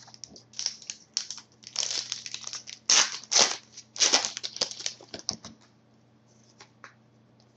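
A trading card pack's foil wrapper crinkling as it is opened, and cards sliding and being shuffled by hand. The rustling comes in a quick flurry of bursts and dies down after about five and a half seconds.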